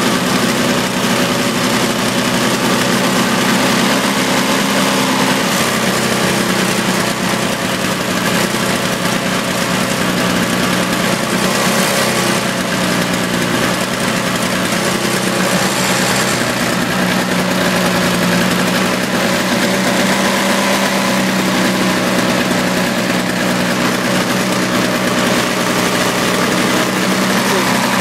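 Toro CCR 2450 snowblower's two-stroke engine running steadily just after a cold start, its carburetor freshly drained of old gasoline and oil.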